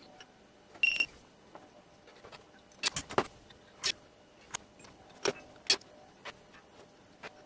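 Light scattered clicks and knocks of hands working a small metal bench vice and soldering iron at a circuit board, with one short ringing metallic clink about a second in, typical of the vice's sliding handle.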